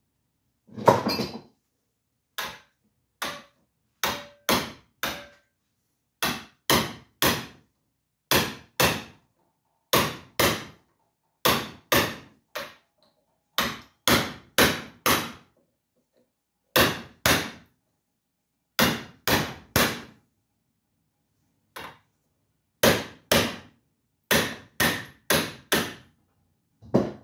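Repeated hammer blows on the seized hoist spindle to work it free. About thirty sharp strikes come in quick runs of two to four, roughly two a second, with short pauses between runs; the first blow, about a second in, is the loudest.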